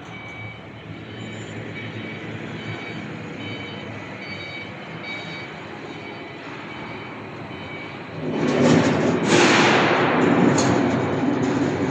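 TCK56Y CNC slant-bed lathe running: a steady machine hum with faint, broken high-pitched whines, then from about eight seconds in a much louder, noisy stretch that lasts to the end.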